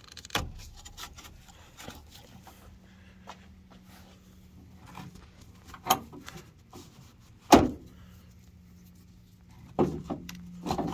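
Scattered clicks and knocks of a GM bed divider cargo net's plastic rope tensioner and hooks being handled against a pickup truck bed as the net is loosened. Sharp knocks come about six and seven and a half seconds in, with a cluster near the end.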